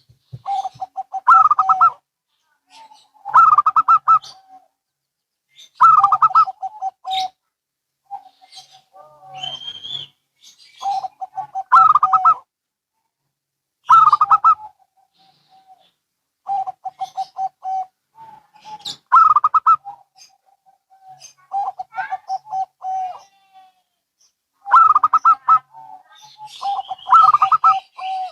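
Zebra doves (perkutut) cooing in turn. Each call is a rapid run of notes lasting a second or so, and a new call comes about every two seconds.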